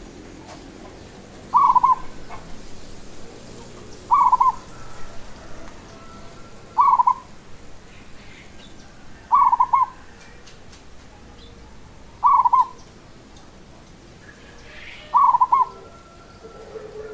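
Local Indonesian zebra dove (perkutut lokal) cooing its song: a short, quick phrase of three or four notes, repeated six times at a steady pace of roughly one every two and a half to three seconds.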